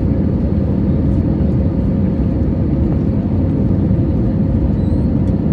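Steady low rumble of a Boeing 737's jet engines, with a faint steady hum running through it.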